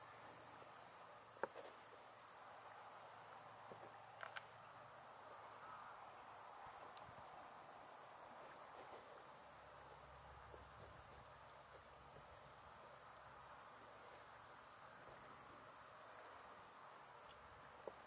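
Faint field ambience: insects trilling steadily, high-pitched, with a faint chirp repeating about twice a second through the first half. A sharp click about a second and a half in and a couple of softer clicks around four seconds.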